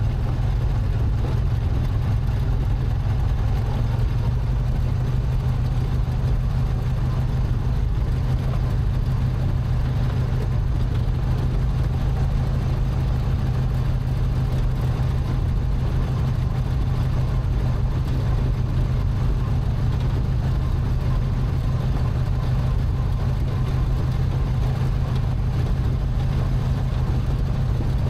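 Racing lawn mower's Briggs & Stratton twin-cylinder engine running steadily as the mower drives along, an even, low-pitched engine sound that does not rise or fall.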